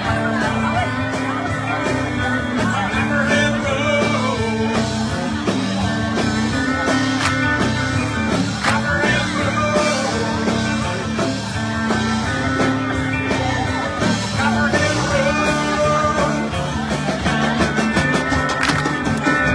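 Live country-rock band playing: electric guitars, bass and a drum kit, with a lead line bending over a steady beat of dense drum hits.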